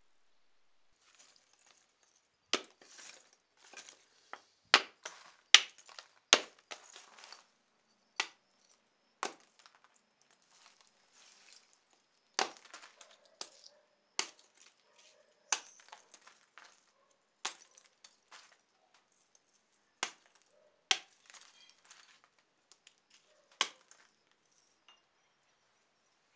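Lump charcoal being chopped into small pieces on a wooden stump: irregular sharp cracks and clinks every second or two, with the crunch and rattle of fragments between strikes.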